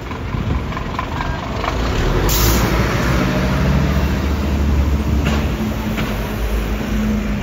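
Scania fire engine's diesel engine running as it pulls past close by, with a short sharp hiss of air brakes about two seconds in. A double-decker bus's engine runs behind it.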